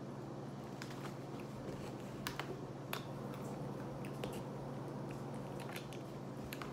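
Scattered light clicks and crackles of a thin plastic water bottle being handled and its screw cap twisted open, over a steady low hum.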